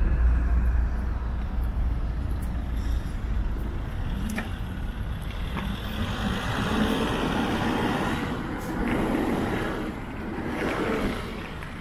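Road traffic: motor vehicles driving past over a steady low rumble, the passes loudest in the second half.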